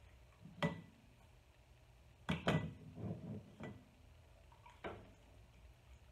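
A handful of sharp knocks and clinks from a glass pint jar and canning funnel as pieces of par-cooked chicken breast are dropped and pushed into the jar, the loudest pair about two and a half seconds in.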